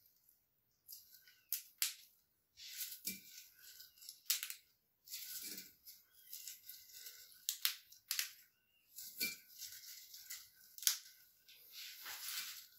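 Gloved hands plucking florets off lilac flower clusters: irregular rustling and crackling of petals and small stems, with a few sharp clicks.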